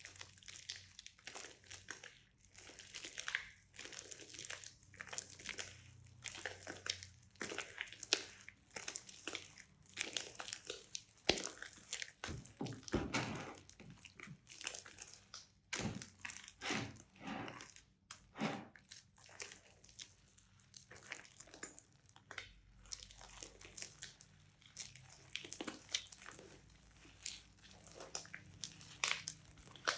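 Slime being squished and kneaded by hand: a continuous run of irregular, short crackling and crinkling sounds.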